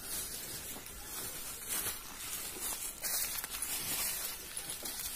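Water buffalo's hooves and a person's footsteps shuffling over dry straw and leaf litter, with rustling.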